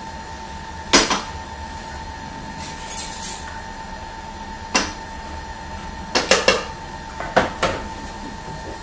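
Plastic Thermomix spatula scraping and clacking against the Thermomix lid and mixing bowl as blended chilli paste is scraped down. A few sharp knocks, the loudest about a second in, then a quick run of clacks between six and seven and a half seconds.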